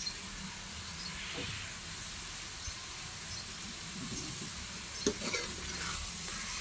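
Chicken pieces sizzling and steaming in a hot metal wok: a steady soft hiss, with a few light ticks about five seconds in.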